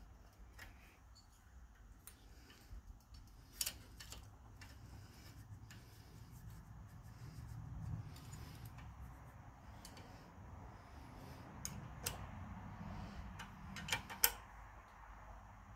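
Faint, sparse metallic clicks and taps of wrenches and a feeler gauge against the rocker arm adjusting nuts while the valve clearance is set on a Honda GX390 engine, over a low steady hum.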